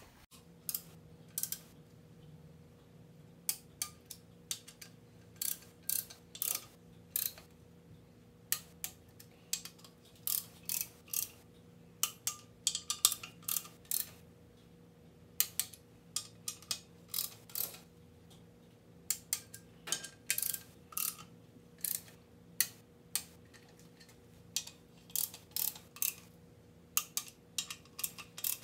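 Ratcheting torque wrench clicking in short, quick runs as the nuts on the main-cap studs of a Ford 4.6 V8 block are run down, with pauses as the wrench moves from nut to nut.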